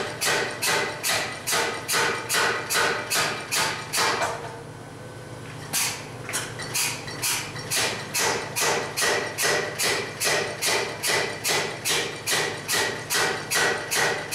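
Power hammer ram striking a hand-held top tool on red-hot steel bar stock, a steady run of evenly spaced ringing blows at about three a second. The blows stop for about a second and a half a third of the way in, then resume, and a steady hum continues through the break.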